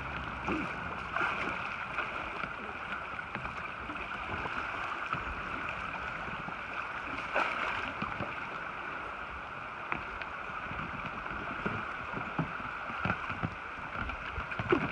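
River water rushing and lapping around a bamboo raft as it is poled downstream, a steady wash with a few faint knocks scattered through it.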